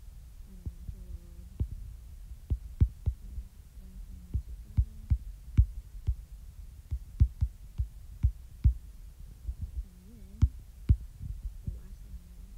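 A stylus tip tapping and clicking on an iPad's glass screen during handwriting: irregular sharp taps, about two or three a second, over a low rumble.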